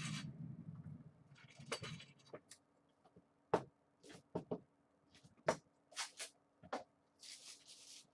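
Trading cards and hard plastic card holders being handled on a table: a series of sharp clicks and taps, with a short sliding rustle near the end. A low rumble fills the first second.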